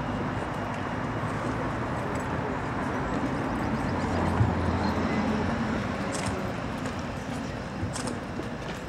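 Steady outdoor background noise of distant city traffic, with a low rumble swelling about four seconds in and fading by six. A few short sharp clicks near the end.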